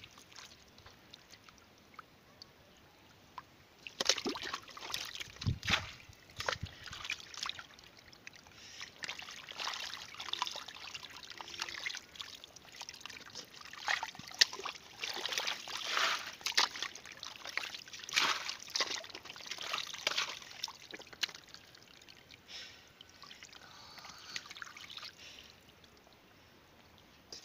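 Muddy water trickling and sloshing into a bamboo basket sunk in pond mud, with irregular wet splashes and slaps starting about four seconds in and easing off near the end.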